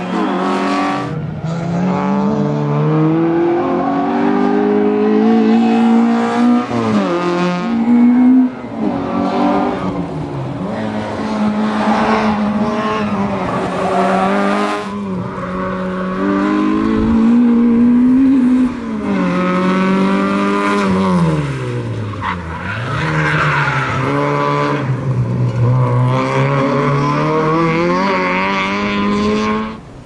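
Citroën Saxo rally car's engine revving hard through the gears on a timed course, its pitch climbing in repeated rises and falling sharply where it brakes and turns, several times over.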